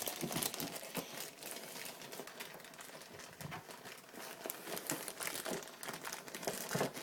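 Packaging crinkling and rustling with many small irregular crackles as the contents are pulled out of a laptop box.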